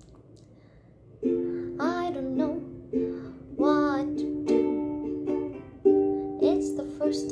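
Ukulele strumming chords, starting about a second in, each strum ringing before the next as the song's intro.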